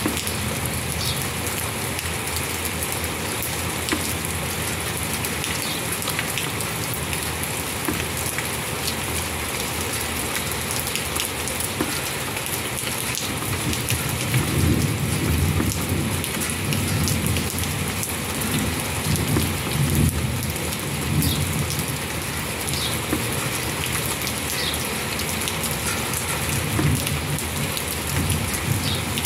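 Steady rain falling, an even hiss. About halfway through a low rumbling swells in and carries on, louder than the rain.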